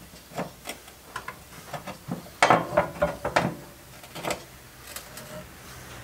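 Light, irregular clicks and knocks of a brush and hand tool against a vintage metal stool's frame and seat pan, with a louder cluster of knocks about halfway through.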